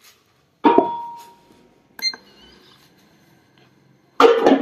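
Knocks and clanks from a steel platform scale's frame as a person steps off it. The first knock rings on with a metallic tone, a sharper clank about two seconds in rings higher, and the loudest cluster of knocks comes near the end.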